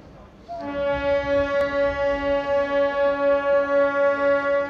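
Indian Railways MEMU train's horn sounding one long steady blast as the train departs. It starts about half a second in, and its loudness wavers a few times a second.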